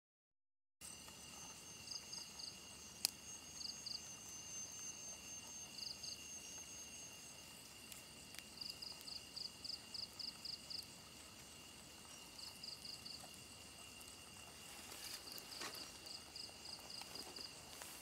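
Night insects calling: a steady high-pitched drone with repeated bouts of short, high chirps, about four or five a second. A single sharp click comes about three seconds in.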